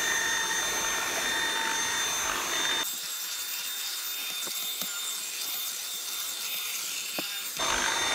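Dyson V7 Animal+ cordless vacuum running with its mini motorised brush head on stair carpet: a steady high-pitched whine over a rushing noise. About three seconds in the sound changes and turns thinner, then fills out again near the end.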